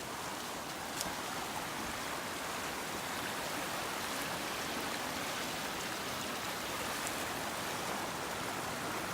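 Swollen creek rushing steadily over a ford, running high from flooding.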